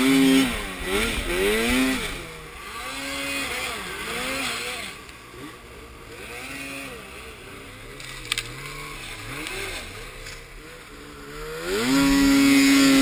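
Snowmobile engine under a rider's throttle, its pitch rising and falling again and again as it is revved and eased off, then revving up hard near the end and holding at high revs. A single sharp click a little past the middle.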